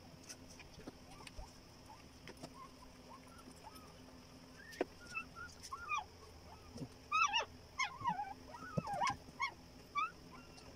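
Newborn Belgian Malinois puppy squealing: a rapid series of short, high-pitched squeaks starting about halfway through and loudest near the end.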